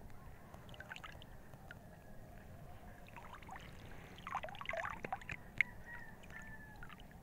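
Lake water lapping and sloshing against the side of a small boat, with a short spell of splashing about four seconds in and a sharp tick just after. Faint bird calls are heard in the background.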